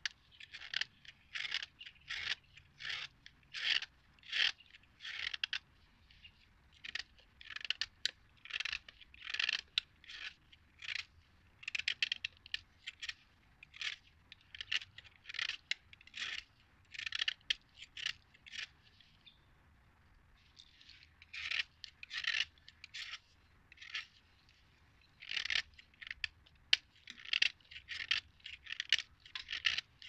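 Snap-off utility knife blade scraping the crust off a block of Khrapovsky natural chalk, in quick repeated strokes about two a second, with a short pause about two-thirds of the way through.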